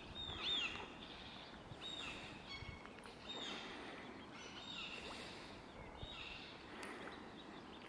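Ducklings peeping: short high chirps that bend downward, repeating every second or so over a faint steady hiss.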